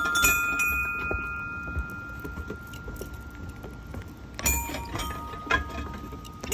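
Bell-like musical notes from a floor pad of metal plates, each plate sounding its own pitch when stepped on. Two notes start together and ring out for a couple of seconds, then two more follow about half a second apart near the end, with dull thuds of feet landing on the plates.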